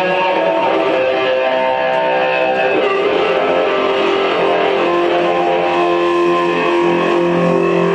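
Les Paul-style electric guitar played live through a Marshall amplifier, with long held notes.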